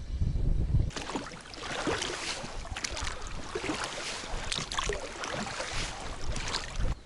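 Wind rumbling on the microphone, then from about a second in a rowing boat in water: a dense run of splashes and crackles that stops abruptly near the end.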